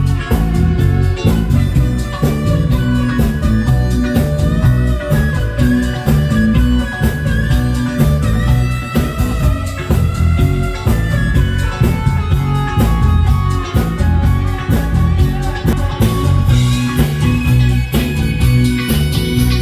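Rock band playing an instrumental passage with no singing: electric guitar lines over bass and a steady drum beat.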